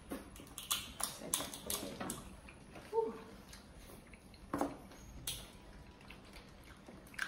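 Spanner crab shell being cracked and picked apart: scattered sharp clicks and cracks, about a dozen, with soft eating and handling sounds between them.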